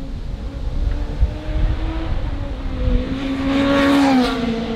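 A classic superbike racing motorcycle approaching at speed under load. Its engine note rises and grows louder, is loudest about four seconds in, and then drops in pitch as the bike passes by.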